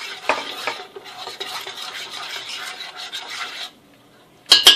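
Metal spoon stirring a thin yeast-starter batter in a stainless steel bowl, scraping against the sides. The stirring stops about three and a half seconds in, and near the end the spoon strikes the bowl in a few sharp, ringing clinks.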